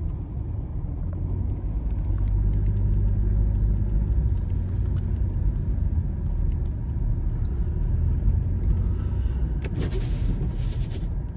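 Car engine and road noise heard from inside the cabin while driving: a steady low rumble that grows louder a couple of seconds in. A brief hiss comes near the end.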